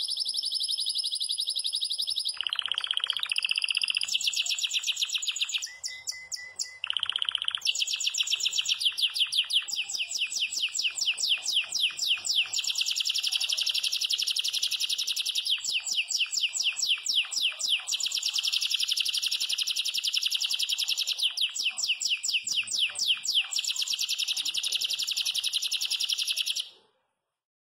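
Yellow domestic canary of the Belgian type singing hard without a break: a long, high song of fast rolling trills, with two lower, buzzier rolls in the first several seconds. The song stops abruptly just before the end.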